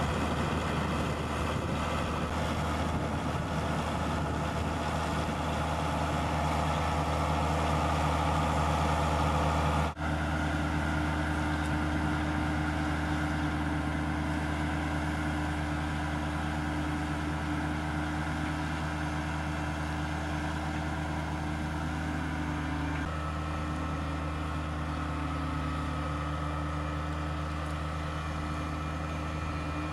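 Tractor engine running steadily, with a brief break in the sound about ten seconds in and a slight change in its note later on.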